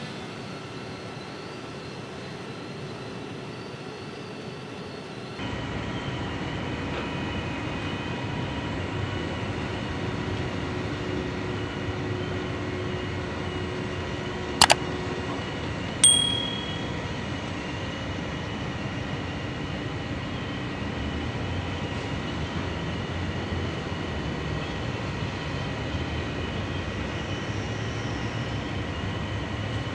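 A steady mechanical hum and rush of noise that steps up in level about five seconds in. Midway through, a subscribe-button sound effect: a sharp mouse click, then a second click with a short bell ding that rings out.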